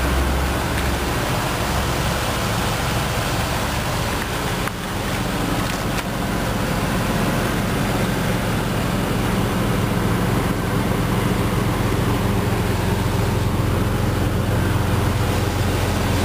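Exhaust of a 2000 Jeep Grand Cherokee's 4.0-litre inline-six idling steadily, heard at the rear of the vehicle.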